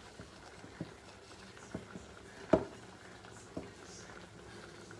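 Pizza dough being worked by hand in a ceramic bowl: a few dull knocks and slaps about once a second, the loudest about halfway through.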